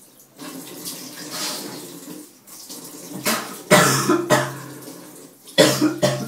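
Water running into a sink while a man bent over it coughs and hacks hard, in loud harsh bursts about three to four seconds in and again near the end. The coughing comes from dry cinnamon burning his throat.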